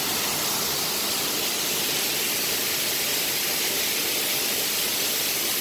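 King Creek Falls rushing: a steady, even hiss of falling water with no change in level.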